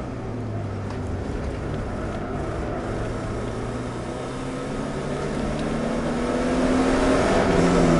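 Subaru Impreza's flat-four boxer engine heard from inside the cabin, holding steady revs at first, then accelerating hard from about five seconds in, its pitch rising and growing louder near the end.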